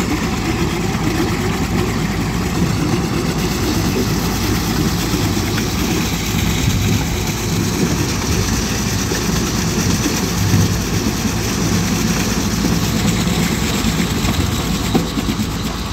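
Case 721F wheel loader's diesel engine running steadily while its beet chopper bucket turns, chopped beet spilling out of the bucket onto the pile.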